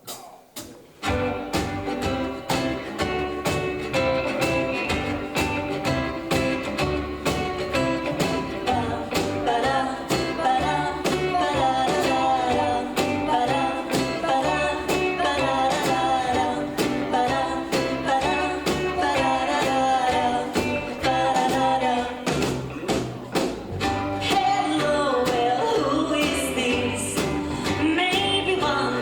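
Rockabilly band playing live. It kicks into a song about a second in, and a singer comes in partway through.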